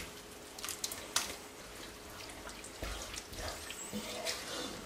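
Tinned white beans in tomato sauce sliding and plopping out of the can into a cast-iron pot, then a wooden spoon stirring the wet beans, with soft squelching and a few small knocks.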